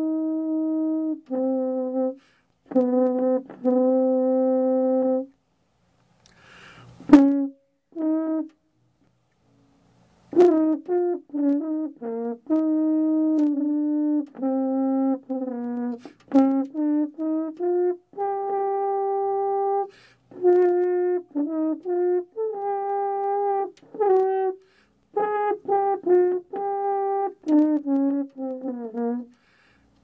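French horn played solo: long held notes and short phrases, with a pause of a few seconds about a third of the way in, then quicker runs of notes near the end.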